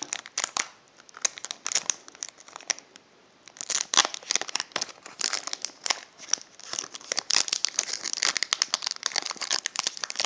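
Yu-Gi-Oh booster pack's foil wrapper crinkling and being torn open by hand, with a short lull about three seconds in.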